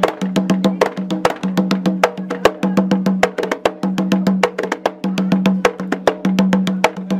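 Music with a fast, steady beat of sharp percussion hits, several a second, over a repeated low held note.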